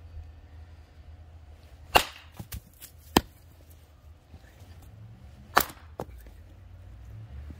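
Hatchet blade chopping into a short piece of wood set on a chopping stump, hewing it down. There are four sharp strikes at uneven intervals, the first about two seconds in, with a few lighter knocks between them.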